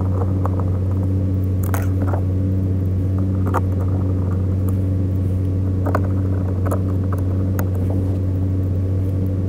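Steady low hum with scattered light clicks and taps, from hand work on the car's dashboard trim.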